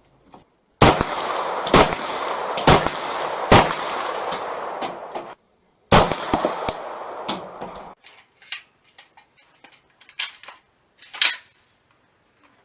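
AR-15 rifle firing: four shots about a second apart, then a fifth about two seconds later. Lighter clicks and clanks follow.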